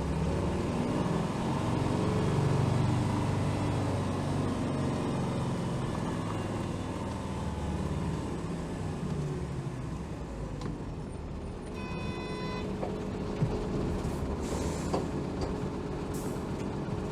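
Interior running sound of a Hino Rainbow HR diesel city bus. The engine note falls as the bus slows. About twelve seconds in there is a short electronic tone lasting about a second, followed by brief bursts of air hissing from the air brakes.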